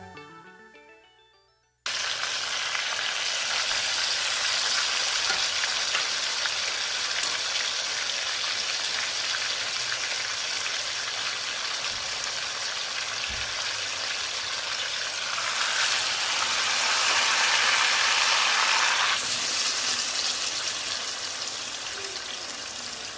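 Food sizzling as it fries in a hot pan, a steady hiss that swells louder for a few seconds past the middle and then eases back. Background music fades out in the first two seconds.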